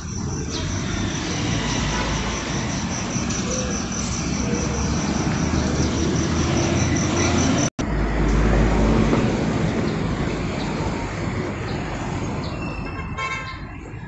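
Road traffic running past at a busy junction, a steady rumble of engines and tyres. After a brief dropout about halfway through, a city bus passes close by with a heavier low engine rumble. A fast, high ticking runs through the first half.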